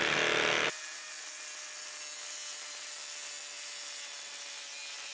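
Flex 24V brushless impact driver hammering as it drives a long lag screw into a wooden stump, struggling to sink it. The loud hammering drops off sharply under a second in, leaving a quieter steady hiss.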